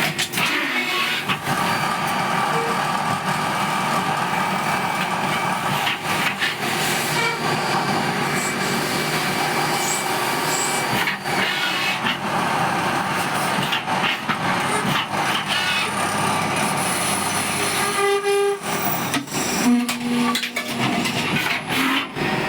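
CNC lathe running in production, a steady mechanical noise with a few steady tones and frequent short clicks.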